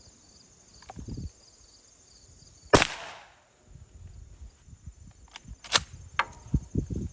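A single 12-gauge shotgun blast from a Mossberg Maverick pump shotgun firing a homemade cut wax slug, about three seconds in, with a short echoing tail. A few sharp clicks and knocks follow a couple of seconds later.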